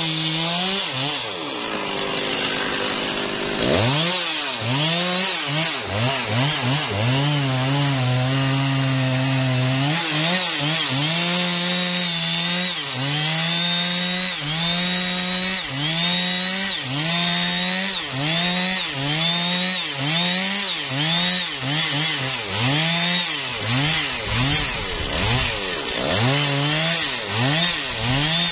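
Big Stihl chainsaw cutting down through a thick trembesi limb, running hard under load. It revs up about four seconds in, then its engine pitch dips and recovers about once a second as the chain bites into the wood.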